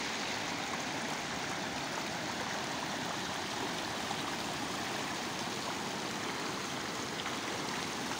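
Shallow floodwater flowing steadily across a paved road.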